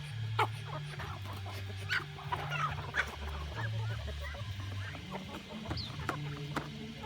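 Chickens clucking, with scattered sharp taps, over low background music.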